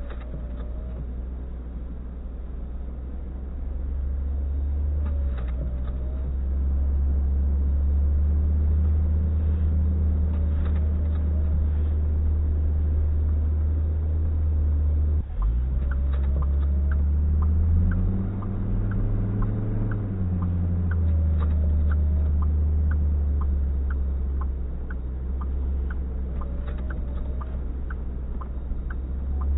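Steady low rumble of a vehicle engine running, rising and falling in pitch for a few seconds past the middle as if the engine speeds up and settles. Faint quick ticking runs through the second half.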